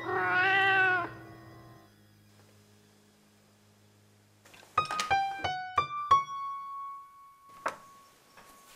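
A cat meows once, a single drawn-out call about a second long that rises and falls in pitch. After a pause, a short run of about six piano notes begins about five seconds in, and the last note is held.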